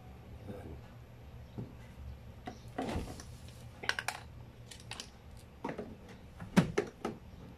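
Scattered plastic clicks and knocks as a washing machine's panel is handled and snapped onto its catches, with the loudest knock about two thirds of the way through.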